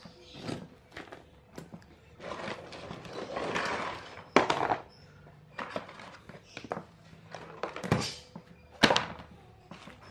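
Workshop handling noises: scattered thunks and clicks of metal parts and tools being picked up and set down, with stretches of scraping in between. There are two sharp knocks, about four and a half and nine seconds in.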